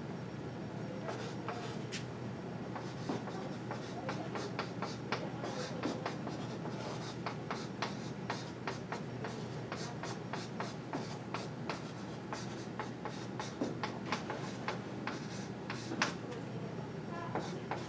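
Someone writing by hand: a stream of short pen taps and scratches over a steady low room hum.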